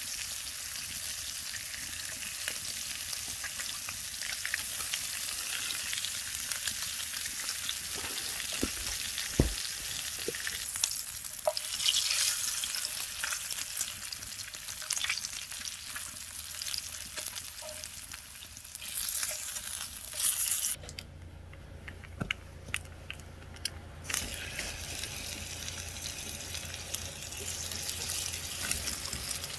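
Hanger steak sizzling over a campfire, a steady high hiss with scattered sharp pops and crackles. About two-thirds of the way through the sizzle drops away for a few seconds.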